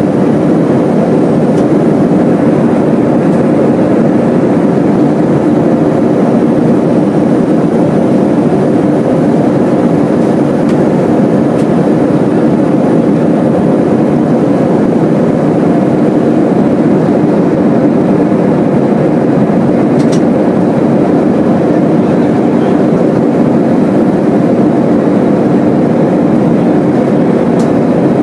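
Steady cabin noise of a Boeing 737-300 in flight, heard from a window seat over the wing: the even drone of its CFM56 jet engines mixed with the rush of airflow past the fuselage.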